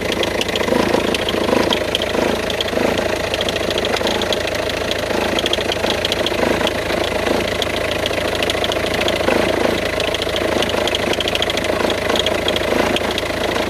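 Peugeot 406 2.1 TD four-cylinder turbodiesel idling, with a fast, irregular ticking rattle from the accessory belt drive. The belt is wandering on a worn-out tensioner, and taking the belt off later stops the noise.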